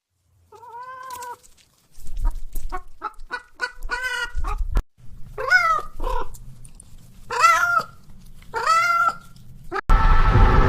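A hen and a cat: a single drawn-out call, then a run of rapid short clucks, then three longer arched calls. Near the end a loud steady rumbling noise with several held tones starts abruptly.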